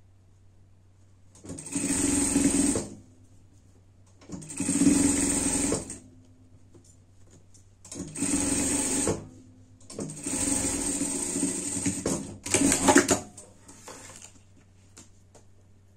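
Sewing machine stitching through thick layers of plush fleece in five short runs of a second or two each, stopping between runs while the fabric is repositioned. A faint low hum carries on in the pauses.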